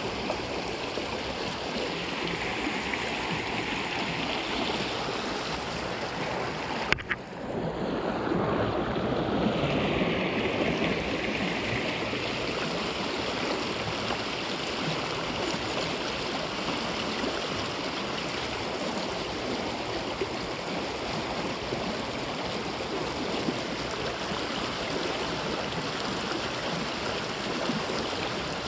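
Shallow stream running steadily over a gravel bed, with one sharp click about seven seconds in.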